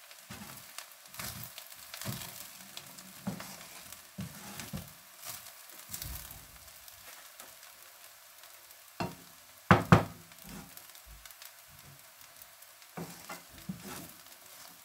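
Spatula stirring and turning fried rice in a non-stick frying pan over the heat, with a light sizzle and irregular scraping strokes about once a second. Two sharp knocks about ten seconds in are the loudest sounds.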